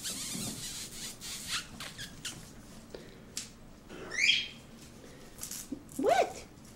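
Chinese crested puppies playing: light scuffling and clicks, a short high-pitched puppy squeal about four seconds in, and a brief yip near the end.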